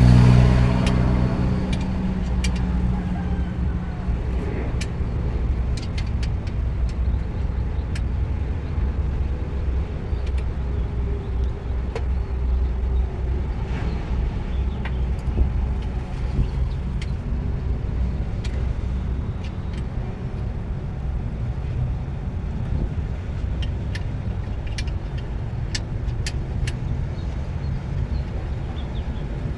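Steady low engine rumble with scattered sharp metallic clicks, typical of hand tools at work on the car.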